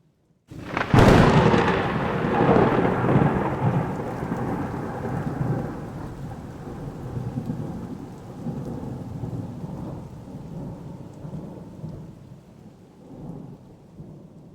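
A close thunderclap: a sharp crack about a second in, then a long rolling rumble that slowly fades, with rain falling.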